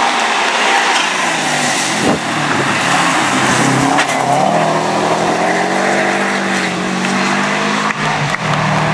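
Subaru Impreza rally car's flat-four engine running hard as the car passes at speed on a wet tarmac stage, with sharp cracks near two and four seconds in. The engine note drops and then rises in steps in the second half as the car goes through the bend and pulls away.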